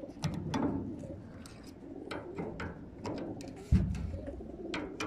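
Racing pigeons cooing inside a metal transport crate, with short clicks and knocks from handling the crate's plastic seal tag, and one loud dull thump a little past halfway.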